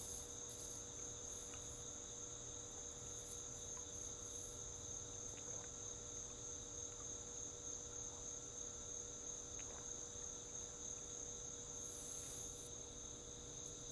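Steady chorus of crickets, a continuous high-pitched chirring with no break.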